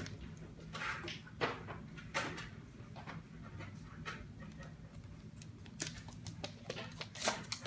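A cat scampering and pouncing after a laser dot: irregular paw scuffs, patter and light thumps on the floor, over a steady low hum.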